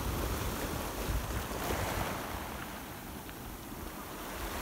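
Small waves breaking and washing up a shingle beach, the surf swelling about two seconds in and easing off, with wind rumbling on the microphone.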